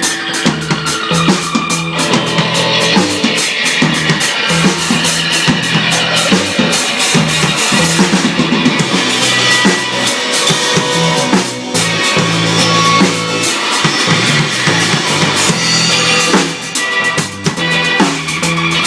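A punk band jamming: a drum kit played with continuous hits on the bass drum and snare rims, over guitar.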